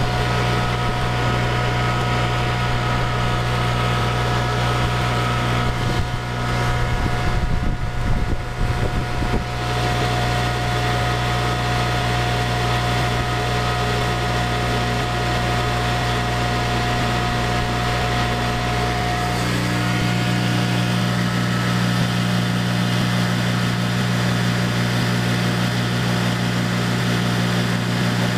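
Converted Imperial P56 electric motor, driven by a pulsed asymmetric controller, running noisily at about 3600 RPM with a steady hum and a high whine. About two-thirds of the way through, the whine cuts out and the hum changes.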